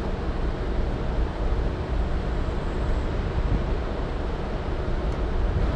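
Steady low outdoor rumble of street traffic and wind on the microphone, with no distinct clicks or knocks.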